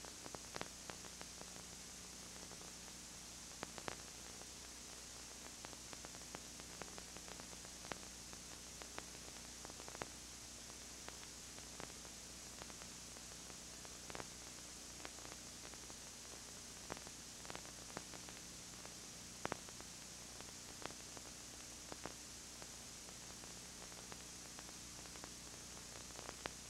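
Steady hiss and low electrical hum from a dubbed videotape, with scattered faint clicks and crackles. No other sound stands out.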